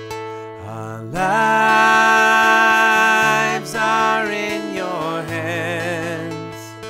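Acoustic guitar strumming a steady rhythm while a singer holds long notes with vibrato, starting about a second in, with a shorter held note and another wavering held note later.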